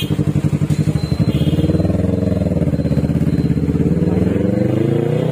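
Yamaha R3's 321 cc parallel-twin engine through an Akrapovic full-system exhaust, running at idle and then pulling away about a second and a half in, its note rising steadily as the bike gets up to speed.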